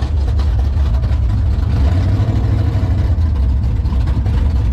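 Dodge truck's 440 big-block V8 idling steadily, heard from inside the cab as a deep, even rumble.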